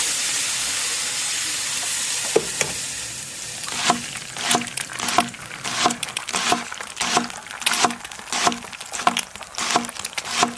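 Kitchen sounds: food sizzling in a hot pan for the first three and a half seconds, then a run of regular knocks about every two-thirds of a second.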